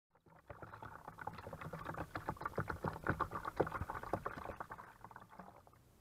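Water poured from a plastic bottle into a shallow bird bath, a quick run of splashing and gurgling that dies away near the end.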